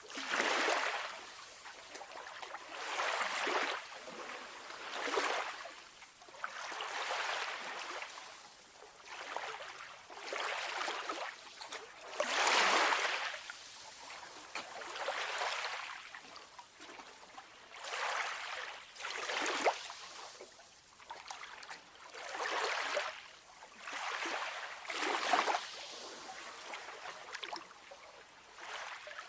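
Calm sea: small waves washing in one after another, each a brief rush of water that swells and fades about every two seconds, with quieter gaps between.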